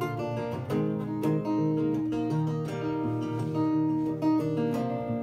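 Acoustic-electric guitar played solo, a run of picked notes and strums, in the instrumental break between sung lines.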